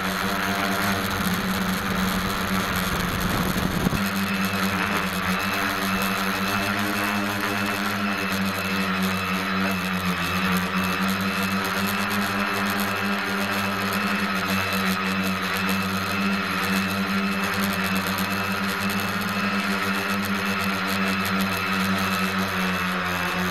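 SK450 quadcopter's brushless motors and propellers humming steadily in flight, close-up from the camera mounted on the frame. A rushing noise lies over the hum at first and clears about four seconds in.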